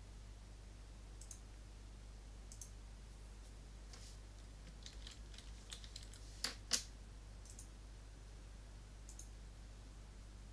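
Computer mouse clicks and keyboard typing: scattered single clicks, a quick run of keystrokes about five seconds in, then two louder clicks close together. A steady low hum runs underneath.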